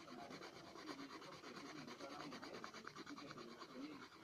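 Pencil shading on paper: the lead scratches and rubs in rapid, even back-and-forth strokes, a faint steady scribbling.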